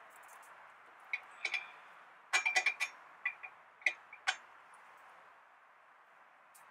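Light metallic clicks and clinks from a gloved hand working on parts in a car's engine bay: a few scattered clicks, a quick run of them about two and a half seconds in, then a few more before it goes quiet.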